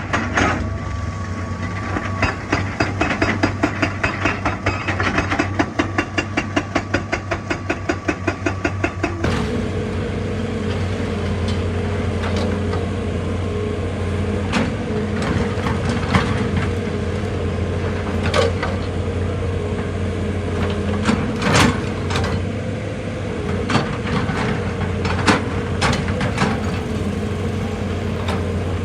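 Excavator diesel engine running steadily under work. For several seconds in the first third, a fast, even hammering of about nine blows a second, like a hydraulic rock breaker working stone. After a sudden change, the engine runs on with a steady whine and scattered single knocks and clanks of rock.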